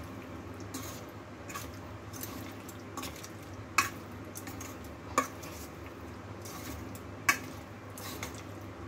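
Metal spoon stirring marinated potato and vegetable pieces in a stainless steel bowl, a soft stirring of the thick marinade broken by sharp clinks of the spoon against the bowl, three of them loud.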